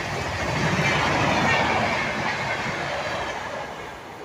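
Indian Railways passenger train coaches running through a station at speed, their wheels rolling over the rails. The sound fades near the end as the last coach goes by and the train draws away.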